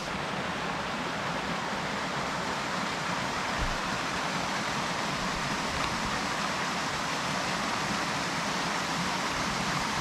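Small forest waterfall cascading over rocks into a stream: a steady, even rush of water.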